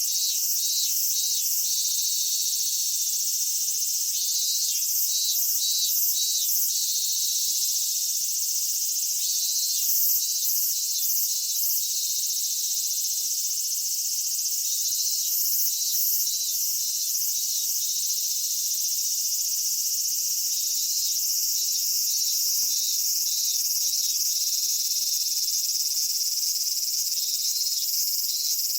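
Chorus of summer cicadas: a steady high buzz, with repeated pulsed phrases of a few beats each rising out of it every few seconds.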